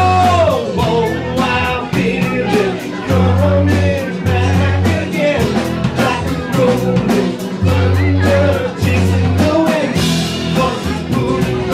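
Live rock band playing a slow ballad: drums keeping a steady beat, long bass notes, electric guitar and a singer's voice over the top.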